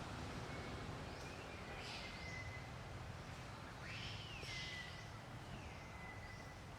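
Faint high-pitched animal calls over steady outdoor background noise: several thin calls, each sliding down in pitch and then holding a note, with the clearest one about four seconds in.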